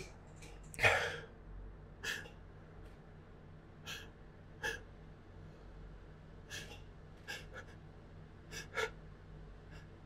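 A person's breathing during a bout of sneezes: one louder gasp about a second in, then a string of short, faint catches of breath and sniffs.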